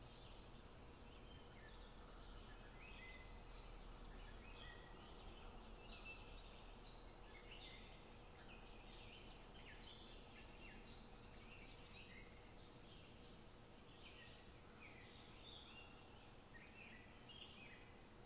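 Faint birdsong: many short chirps and trilled phrases from several small songbirds, overlapping one another, over a faint steady hum.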